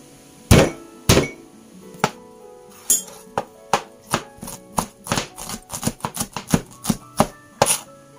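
Garlic cloves crushed under the flat of a kitchen knife with two loud palm strikes, then chopped with the knife on a plastic cutting board: a run of sharp, uneven knocks that come faster in the second half. Soft background music plays underneath.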